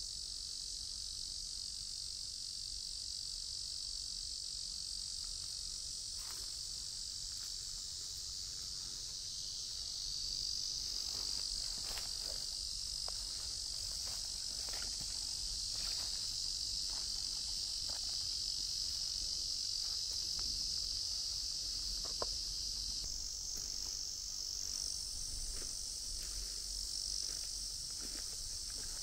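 Outdoor insect chorus, a steady high-pitched buzzing drone that never lets up, with faint scattered ticks from about six seconds in.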